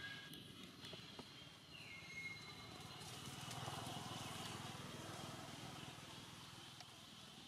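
Faint high call that slides down in pitch and then holds briefly, about two seconds in, over quiet outdoor background noise.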